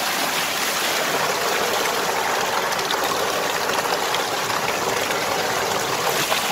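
Thick stream of water gushing steadily from a tubewell pipe into a concrete tank, splashing over a man bathing under it.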